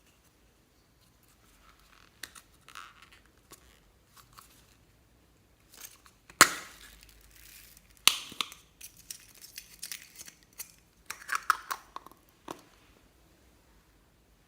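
Crinkling, crunching handling noises as things are opened, crushed and added for slime mixing, with two sharp snaps about halfway through, a second and a half apart, and a run of crackles near the end.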